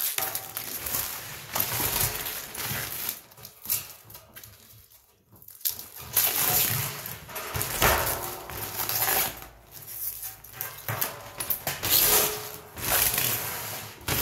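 Protective plastic film being peeled off a stainless steel honey extractor drum, crackling and rustling in irregular bursts, with a short pause about five seconds in.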